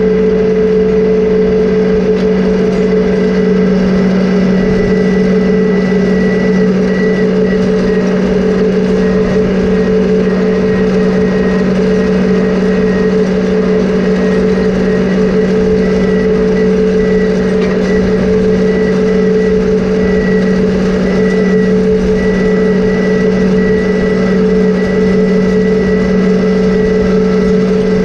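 John Deere 2038R compact tractor's three-cylinder diesel engine running steadily under load while pulling chain-harrow drags, a constant drone with a faint high whine that comes and goes.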